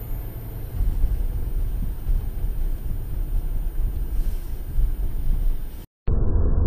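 Road noise inside a moving car, picked up by a dashcam microphone: a steady low rumble of tyres and engine on a wet street. About six seconds in it cuts off for a moment, then a louder, duller road rumble from inside a truck cab takes over.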